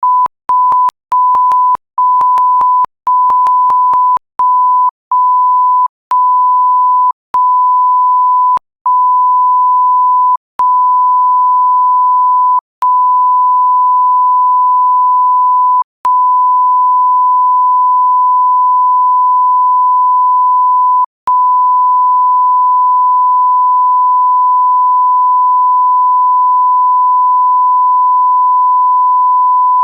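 A 1 kHz sine-tone beep, the TV test-pattern and censor bleep tone. It comes first as many short beeps, then longer and longer ones, and near the end as one long continuous tone.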